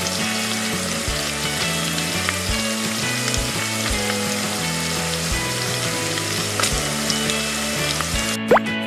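Steady sizzle of food frying in a pan, a frying sound effect laid over the toy-kitchen cooking, with soft background music underneath. A quick rising whistle comes in near the end.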